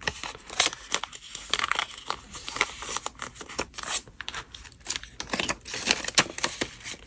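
US paper banknotes crinkling and rustling in the hands as they are folded and slid into a paper budget envelope, with many short crackles throughout.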